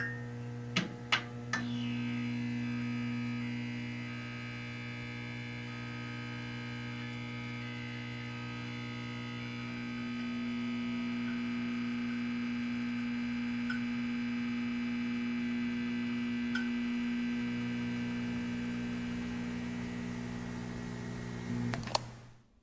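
Low, steady synth drone of outro music, with higher notes shifting slowly above it. A few short clicks come in the first two seconds, and near the end it swells briefly, then cuts off.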